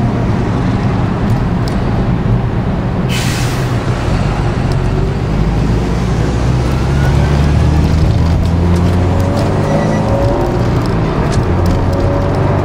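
Subaru Impreza STI's 2.0-litre turbocharged flat-four, heard from inside the cabin, pulling away in traffic with the revs rising, dropping back at a gear change and rising again. A short sharp hiss about three seconds in.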